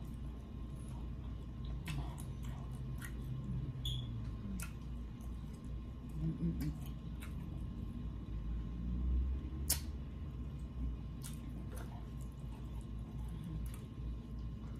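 A person chewing food, with scattered small wet clicks and smacks of the mouth over a steady low hum.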